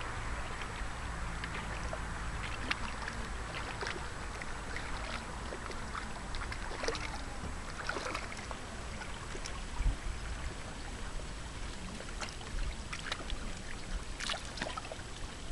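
Lake water lapping at the shore: a steady wash with scattered small splashes and ticks.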